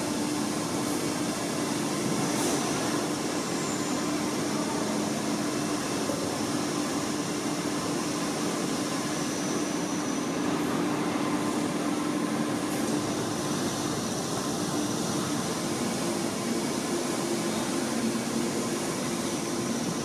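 Kärcher IVR-L 65/12-1 Tc industrial wet-and-dry vacuum cleaner running steadily, a constant whooshing hum with a low tone under it and a few faint clicks from handling.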